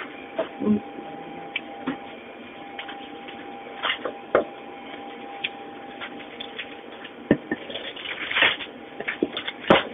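Cheese pieces and plastic wrap being handled on a work counter: scattered light knocks and rustles, the strongest near the end, over a steady machine hum with a faint tone.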